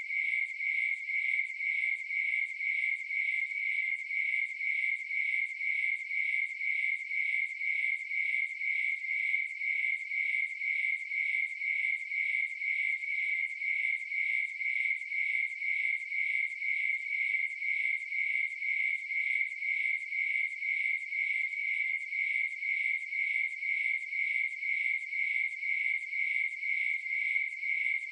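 Crickets chirping in a steady, even rhythm of about two high-pitched chirps a second.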